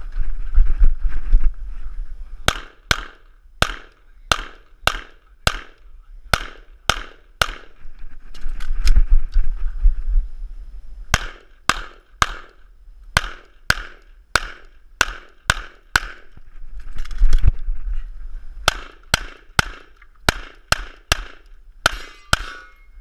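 Semi-automatic pistol firing rapid shots in three strings of about ten shots each, starting a couple of seconds in. In the pauses between strings there is a low rumble.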